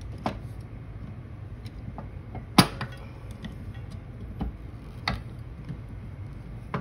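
A handful of separate sharp metal clicks and clinks, the loudest about two and a half seconds in, as pliers and a new return spring are worked against the steel actuating plates of a Farmall 450 tractor disc brake.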